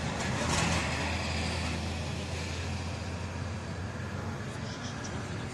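A road vehicle passing close by, its engine and tyre rumble loudest about half a second in and slowly fading as it moves away.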